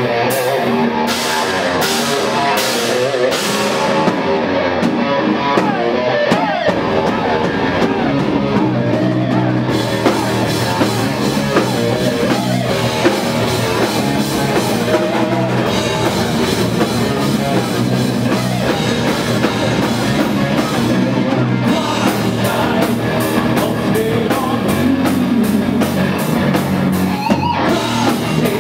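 A metal band playing loud live: distorted electric guitars, bass and a drum kit with crashing cymbals, and a singer at the microphone.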